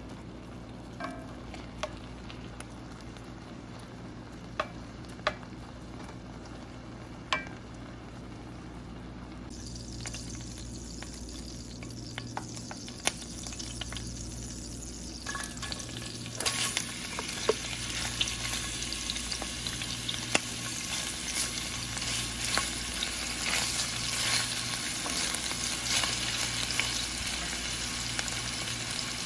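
Pork cooking in its marinade in a pan, with a few sharp knocks of a wooden spatula against the pan. About halfway through, sliced onions go into the hot oil and sizzle, louder and crackling, as they are stirred with a wooden spatula.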